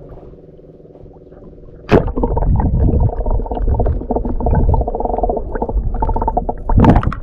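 A handheld camera plunging into seawater about two seconds in with a sudden splash. Loud muffled underwater rumbling and sloshing follow, with a steady hum under it, and another loud splash near the end as the camera breaks the surface.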